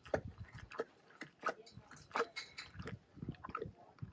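Liliger gnawing and chewing a hand-held chunk of raw meat on the bone: irregular crunches and wet bites from the big cat's teeth and jaws.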